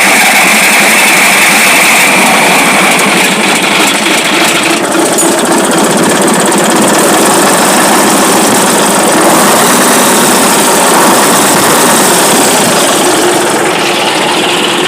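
Scania LK 141's V8 diesel engine running loudly, just started after standing unused for about five to six months.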